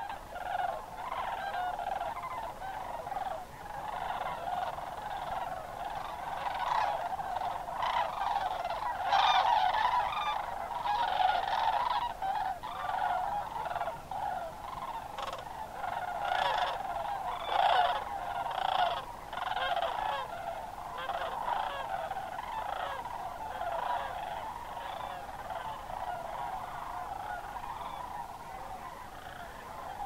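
A large flock of sandhill cranes calling in a dense, overlapping chorus, swelling louder about nine to twelve seconds in and again around seventeen seconds.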